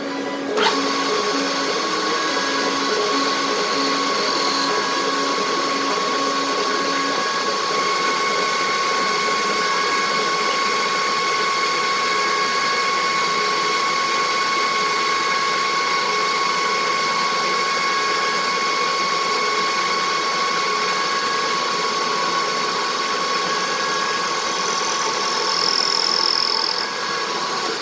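Metal lathe running steadily while turning a metal part, a constant machine whine over the cutting noise.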